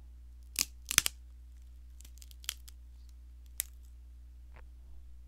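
Bamboo being bitten and chewed, a giant panda eating: irregular sharp crunches and cracks, two loud ones in the first second and fainter ones spread through the rest, over a faint steady hum.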